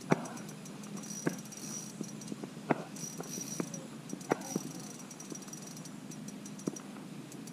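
Scattered light clicks and taps, about one every second or so, with faint fine ticking and handling noise as hands work at a small spinning ice-fishing reel and its line.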